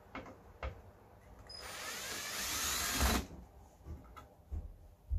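Cordless electric screwdriver spinning for about a second and a half midway, backing a screw out of an LCD TV's metal chassis during disassembly. A few light clicks and knocks of parts and tools being handled come before and after it.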